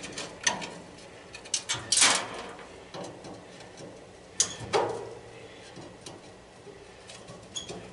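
Scattered metal clicks and short scrapes of a screwdriver working a stuck screw on the sheet-metal frame of a copper coil, loudest about two seconds in and twice more around the middle.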